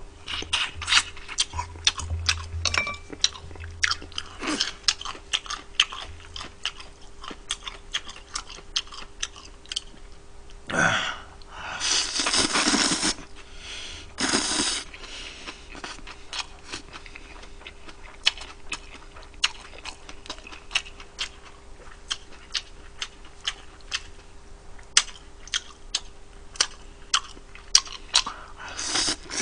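Close-up mouth sounds of a person eating fried chicken and noodles: chewing, with many sharp smacking clicks throughout. Twice, about 11 and 14 seconds in, a longer noisy rush that sounds like noodles being slurped.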